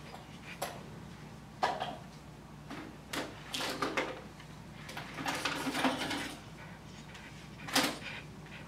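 Handling noises on a dog-grooming table: a few sharp clicks or knocks, one near the start, one about a second and a half in and one near the end, with two stretches of scraping and rustling in the middle, over a faint steady low hum.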